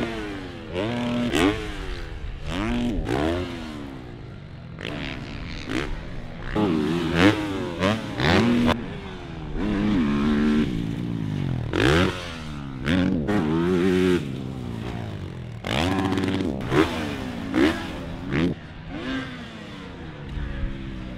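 Motocross bikes racing, several engines revving up and down in quick rising and falling sweeps as they pass, with occasional sharp clatters.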